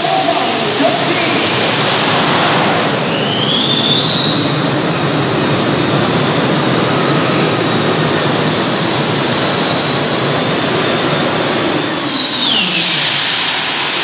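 Modified pulling tractor's cluster of gas-turbine engines running at full power during a pull: a loud, steady jet roar with a high whine that climbs about two and a half seconds in, holds, and falls away near the end as the pull finishes.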